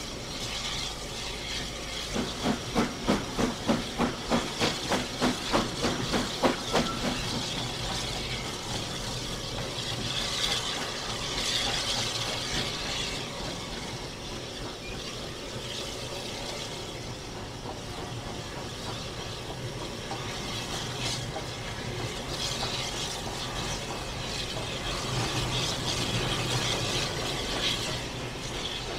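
Footplate sound of Maunsell S15 4-6-0 steam locomotive No. 847 running slowly: steady steam hiss in the cab over wheel and rail noise. A run of quick regular beats, about three a second, lasts several seconds near the start.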